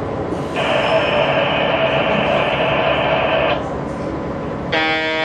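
Departure signals for a train standing at a station platform: a steady, even ringing for about three seconds, then a short electric buzzer tone near the end.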